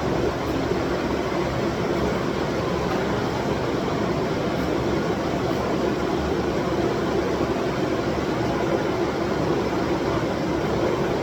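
A forge running: a steady, even rushing noise without breaks or strikes.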